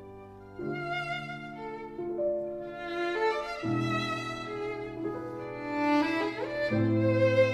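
Instrumental background music: a violin melody over sustained low notes, the low notes changing about every three seconds.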